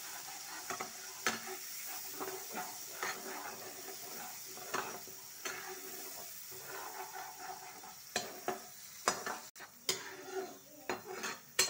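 Tomato-masala gravy sizzling in oil in a kadhai while a spatula stirs it, with irregular scrapes and taps of the spatula against the pan. The spiced tomato puree is being cooked down in the oil.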